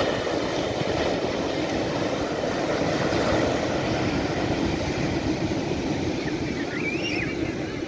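Surf on a sandy beach: small waves breaking at the shoreline and foam washing up the sand in a steady rushing wash, loudest as a wave breaks at the start. A bird calls briefly near the end.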